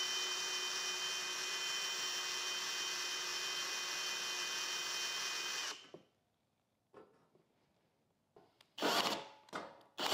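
Cordless drill with a hole saw bit running for about six seconds at a steady pitch, then stopping. After a pause of a few seconds it starts again in uneven bursts near the end. The hole saw is slow to cut through the cabinet's metal panel and keeps getting stuck.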